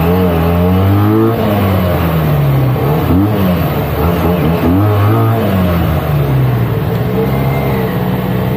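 Benelli 302S motorcycle's parallel-twin engine running on its stock exhaust while riding, its pitch rising and falling several times as the throttle is opened and closed.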